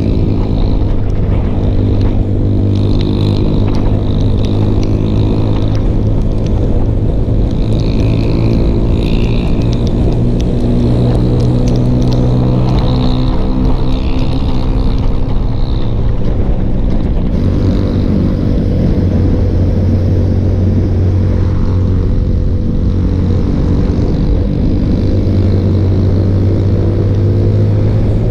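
Yamaha Sniper 155's single-cylinder four-stroke engine running steadily at cruising speed. Its pitch dips a little about two-thirds of the way through and climbs again near the end.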